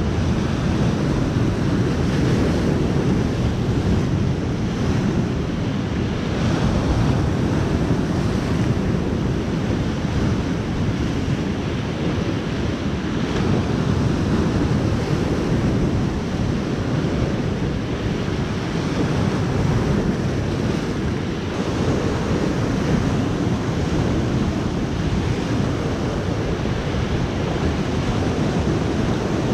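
Sea surf breaking and washing over a rocky shore in a continuous rushing wash that swells and eases, with wind buffeting the microphone.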